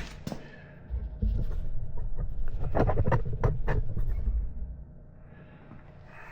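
Dull low rumble of handling, with a cluster of sharp clicks and knocks in the middle, then quieter.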